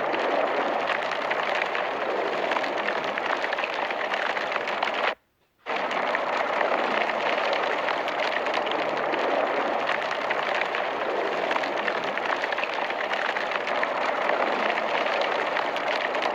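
Incinerator burning: a steady rushing noise with fine crackling, broken once by a half-second gap of silence about five seconds in.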